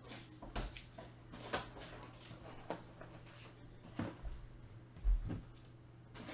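Scattered soft clicks, rustles and knocks of trading-card packs and cards being handled on a table, with a low thump about five seconds in, over a steady low hum.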